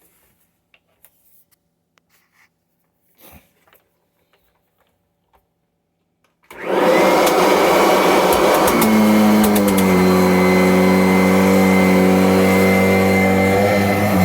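A 2017 Kirby Avalir upright vacuum cleaner is switched on after a few seconds of near quiet with small handling clicks. Its motor spins up at once to a loud, steady run, and its hum settles a little lower in pitch a couple of seconds later. The machine has not run in months and has just been taken apart and worked on.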